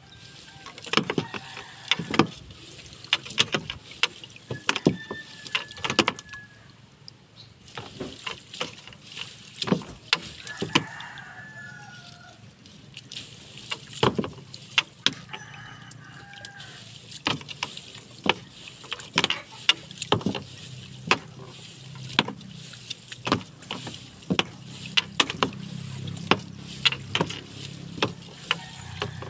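Irregular sharp clicks and knocks as a fishing net is handled against the side of a wooden outrigger boat. A rooster crows several times in the first half.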